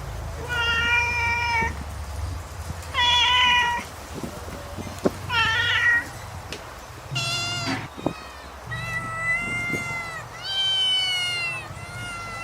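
Cat meowing repeatedly: about six separate high-pitched meows, each about a second long, the later ones bending down in pitch at the end.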